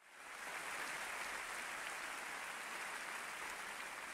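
Audience applauding, fading in quickly at the start and then holding steady.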